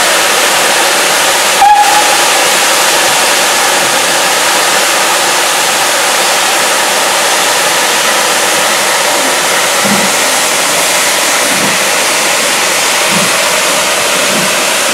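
Steam hissing loudly and steadily as a steam-hauled train of coaches pulls slowly away, with one brief, sharp whistle-like toot about two seconds in and soft thumps from the wheels later on.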